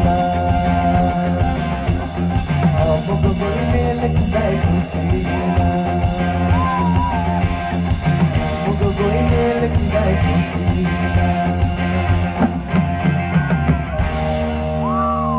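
Live band playing a rock-style Santali song: drum kit and electric guitar, with bending guitar lines over the beat. A little before the end the drumming drops away and the band holds a chord as the song winds down.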